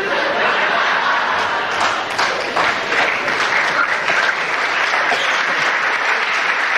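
Theatre audience applauding steadily in response to a comic punchline.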